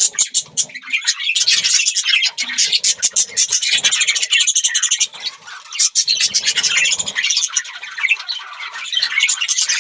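Budgerigars chattering, with many rapid high chirps overlapping without a break and faint low rustles beneath.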